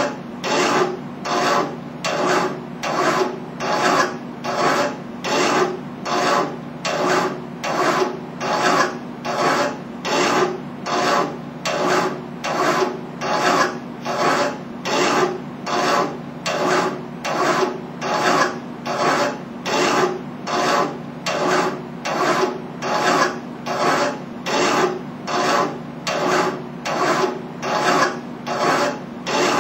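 Hand file rasping back and forth on metal clamped in a bench vise, in an even rhythm of about three strokes every two seconds.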